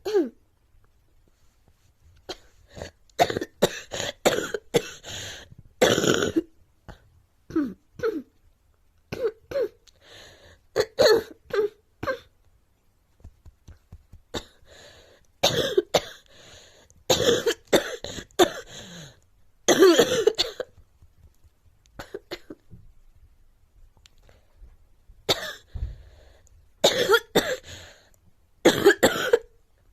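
A girl coughing in repeated bouts of several sharp coughs each, with pauses of a few seconds between the bouts.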